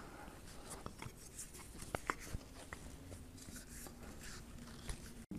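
Faint scratching and a few light ticks from a steel rule being handled and held against a rough oak trunk while measuring.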